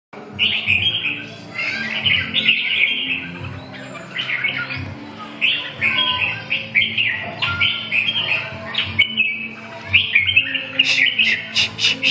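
Caged red-whiskered bulbuls singing: bright, quick chattering phrases one after another, ending about 11 seconds in with a run of rapid, sharp repeated notes, several a second.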